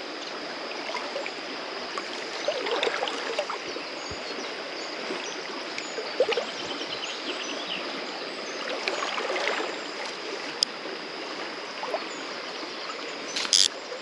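Shallow river current running steadily over a stony riffle, with faint chirps on top. A brief sharp high noise comes about a second before the end.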